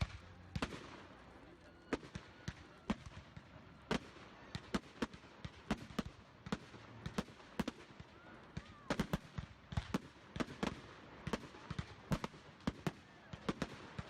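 Fireworks going off as many sharp, irregular bangs and cracks, coming thicker and faster in the second half.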